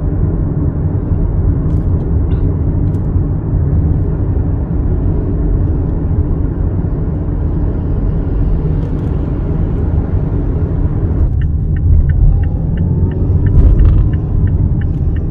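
Steady low road and engine rumble inside a Mazda CX-5's cabin while driving. About eleven seconds in, the hiss eases and an even ticking starts, roughly three ticks a second: the turn signal running.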